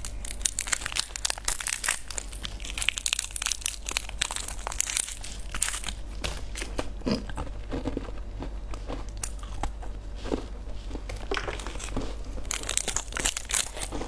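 Plastic lollipop wrappers crinkling and being torn open close to the microphone, a dense run of crisp crackles.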